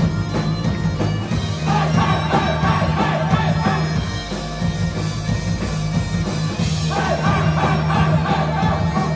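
Live rock band with bagpipes: bagpipes playing over drums and electric guitars, with a steady low drone underneath.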